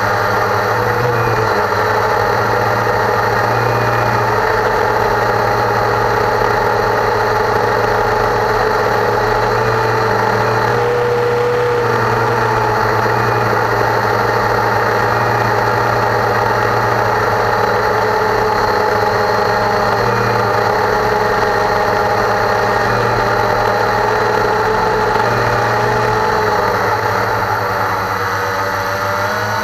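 Cheerson CX-20 quadcopter's four brushless motors and propellers running in steady flight, a loud, steady droning whine as picked up by a camera mounted on the craft. The pitch shifts a little near the end as the motors change speed.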